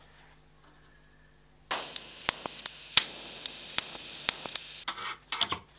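TIG welding arc from an Arccaptain 200P welder, striking about a second and a half in and burning with a steady hiss broken by sharp crackles, then breaking off near the end.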